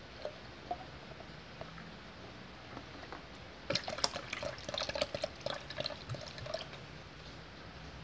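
Milk poured from a plastic bottle into a blender jug, gurgling and splashing for about three seconds from near the middle, after a few faint clicks.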